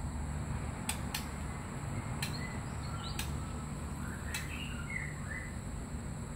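Oriental magpie-robin giving a few short chirps, mostly in the second half, with five sharp clicks scattered through the first half over a steady low background rumble.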